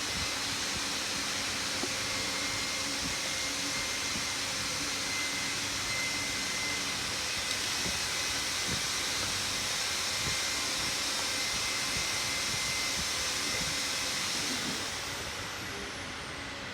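Steady whooshing hiss of moving air with faint steady whines and a few light clicks, easing off a little near the end.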